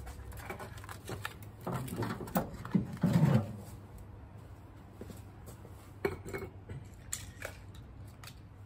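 Scattered light clicks and knocks, with a louder rustling clatter about two to three seconds in.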